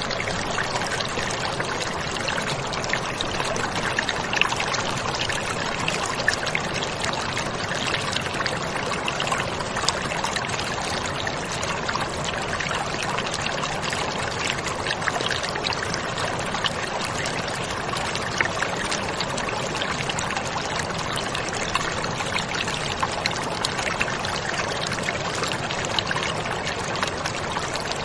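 A steady, even rushing noise with small crackles throughout, like pouring or running water.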